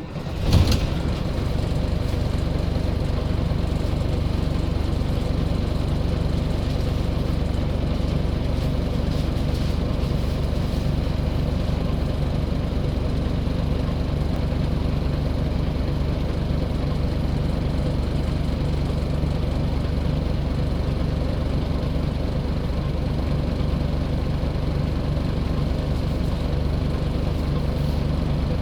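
Scania L94 single-deck bus's diesel engine running steadily, after a short loud knock about half a second in.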